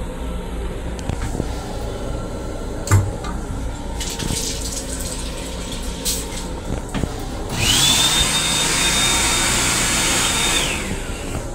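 Sink faucet in a commuter railcar lavatory running. Then, a little over halfway through, a motor-driven whoosh lasts about three seconds, with a whine that rises as it starts and drops away as it stops. Under it all is the steady rumble of the moving train.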